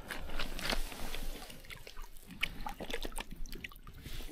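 Soft, scattered ticks and rustles of crouching and shifting on a pebbly, leaf-strewn riverbank while a Murray cod is lowered into the water by hand, with faint drips of water.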